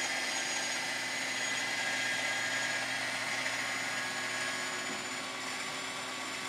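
Small electric food chopper's motor running steadily, its blades chopping onion and garlic. The sound eases a little quieter near the end as the contents get chopped fine.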